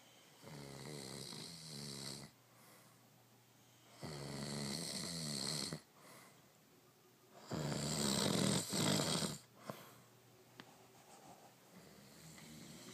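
Human snoring: three long, loud snores about three and a half seconds apart, the third the loudest, followed by quieter breathing.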